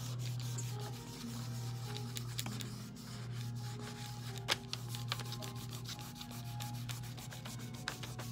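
Hands rubbing and burnishing over a sheet of computer paper, pressing polymer clay down into a textured sheet: a continuous soft scuffing of palm and fingers on paper, with a few light clicks, over a steady low hum.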